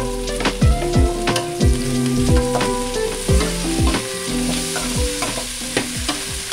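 Carrots and onions sizzling in an aluminium wok while a spatula stirs them, with frequent clacks and scrapes of the spatula against the pan.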